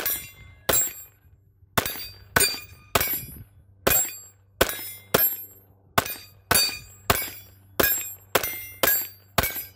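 Taurus TX22 Competition .22 LR pistol firing Thunderbolt rounds in a steady string of about fifteen shots, roughly one every two-thirds of a second, each shot followed by a short ringing tail.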